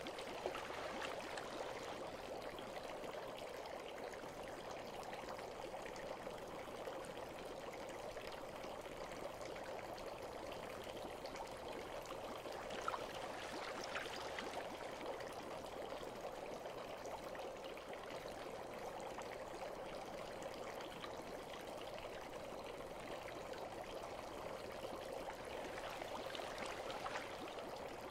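Gentle, steady trickle of running water for a bath, with a couple of faint ticks about halfway through.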